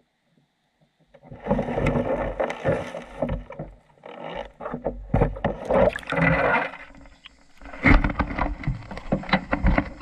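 Water sloshing and splashing around a GoPro camera as the wire-mesh minnow trap holding it is hauled up out of a creek, with many knocks and scrapes of the camera and trap. It starts about a second in and goes on in uneven surges.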